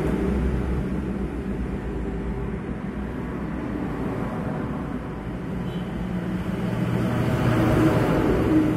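A vehicle running with a steady low rumble, a little quieter in the middle and growing louder toward the end.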